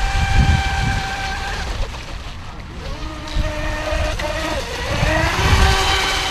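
Reely Mini Mono RC speedboat's brushless electric motor whining as the boat runs across the water. Its pitch holds steady at first, drops about halfway through and climbs again near the end, over bursts of low rumble.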